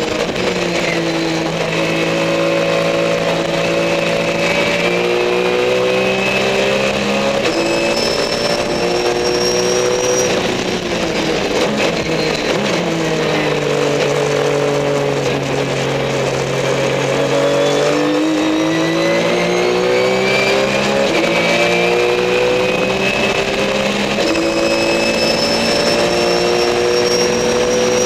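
Race car engine heard from inside the car, pulling up through the gears in steps, then dropping in pitch under braking and downshifts in the middle, holding low revs through a corner, and climbing through the gears again. A high whine rises and falls along with the engine.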